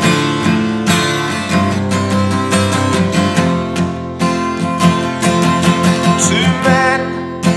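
Steel-string acoustic guitar strummed in a steady chord pattern, playing an instrumental passage of a folk song, with natural reverberation from the room.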